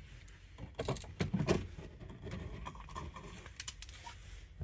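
A few light clicks and taps of small outlet hardware being handled, scattered irregularly.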